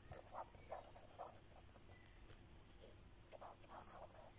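Felt-tip pen writing on paper: faint, short scratchy strokes in two runs, with a lull in the middle.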